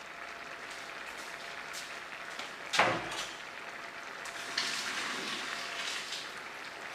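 A metal pot clanks once in the kitchen sink about three seconds in, then water pours into the sink for a second or two as the boiled cassava is drained.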